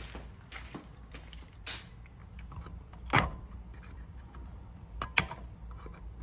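Light clicks and scrapes of a small hand tool working at a small retaining clip on a Tesla Model S door handle assembly. Two sharper clicks come about three seconds and five seconds in.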